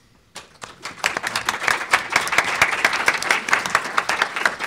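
Audience applauding: dense hand clapping that starts about half a second in and swells to full within a second.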